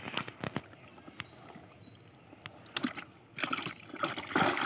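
Water splashing and sloshing in a plastic basin as hands move live fish around in it: a couple of sharp splashes at the start, then a busier, louder run of splashing in the last second and a half.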